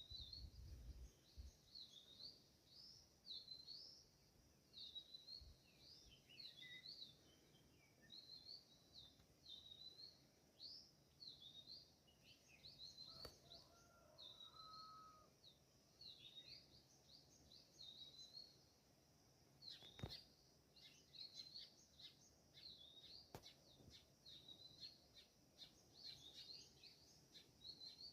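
Small birds chirping, a steady stream of short, high chirps, with a brief lower whistled call about halfway through. A few sharp clicks stand out, the loudest about two-thirds of the way in.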